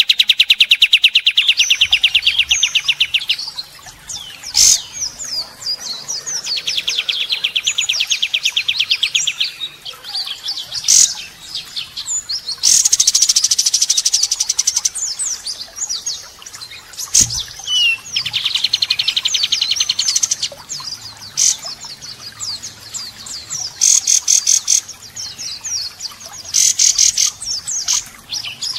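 White-rumped shama singing a varied song of small-bird imitations. Long runs of rough, rapid-fire repeated notes, the 'tembakan kasar', alternate with short whistled phrases and sharp single calls.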